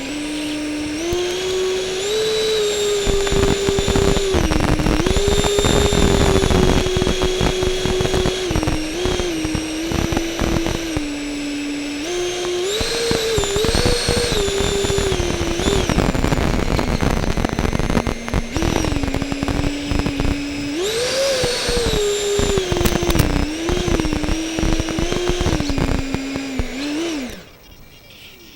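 Electric motor of an RC F-14 Tomcat model jet whining in flight, its pitch stepping and gliding up and down with the throttle, over heavy wind buffeting. Near the end the whine falls in pitch and cuts off.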